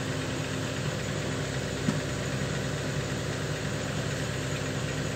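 A steady low machine hum with an even hiss over it, and one faint click about two seconds in.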